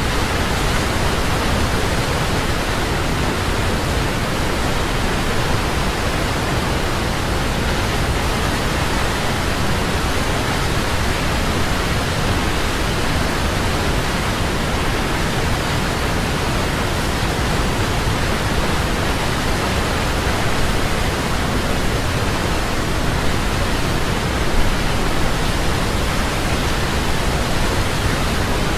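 Large waterfall: a steady, dense rush of falling water, unchanging throughout.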